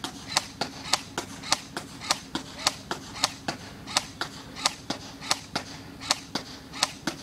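AfterMath Kirinex Police M4-style airsoft rifle firing on semi-auto, a steady string of sharp shots at about three a second.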